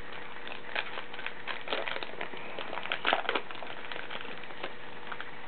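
Trading-card pack wrapper and cards being handled: scattered crinkling and rustling, loudest about three seconds in, over a faint steady hum.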